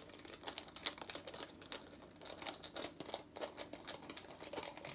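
Photo negatives' sleeves being opened and handled: faint, irregular crinkling and rustling with many small clicks.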